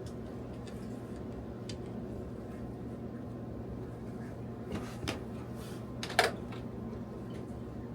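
A few plastic clicks and knocks as a stereo head unit and its cables are handled, the loudest knock about six seconds in, over a steady low hum.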